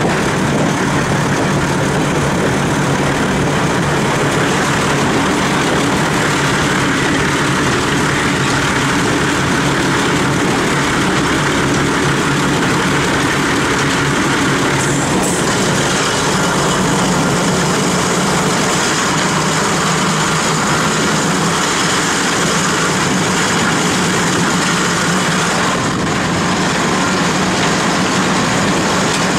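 Diesel multiple unit running along the line, heard from an open carriage window: a steady engine drone mixed with the rumble of wheels on the rails.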